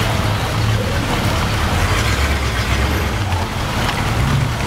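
Early-1950s Chevrolet panel truck's inline-six engine running at low speed as the truck rolls slowly, its low engine note dropping and rising, over a steady hiss of rain.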